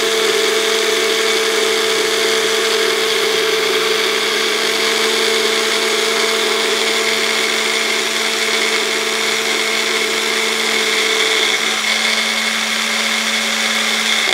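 Bullet-style mixer grinder's motor running steadily with a hum and whir, blending cut apple and water into a milkshake in its handle jar while the jar is held pressed down to keep it running. It cuts off at the end.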